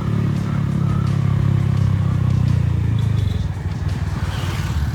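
Single-cylinder engine of a Honda Fan 160 with an aftermarket Fortuna exhaust, running steadily under way. About three seconds in the throttle eases off and the exhaust note drops to a lower, choppier beat.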